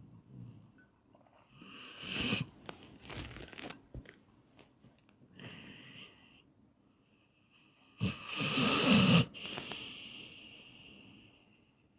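A person snoring: two rattling snores about six seconds apart, the second louder, each followed by a quieter breathy exhale.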